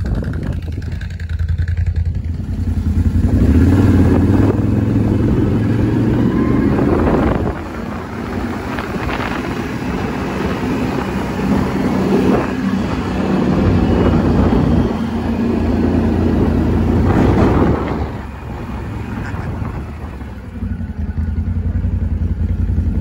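ATV engine running as it is ridden, getting louder under throttle twice, from about three to seven seconds in and again from about twelve to eighteen seconds, and easing off between.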